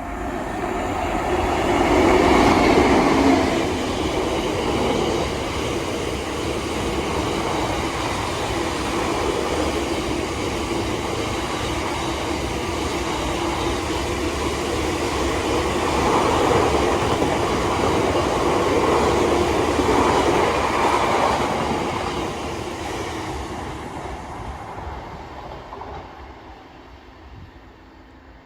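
Freight train passing through at speed, its wheels clattering over the rails. The sound swells about two seconds in and again in the second half, then fades away over the last several seconds as the train leaves.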